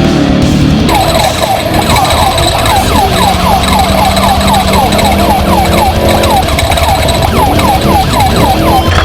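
Siren-like yelp: a short falling chirp repeated about three times a second, starting about a second in, over a steady low drone.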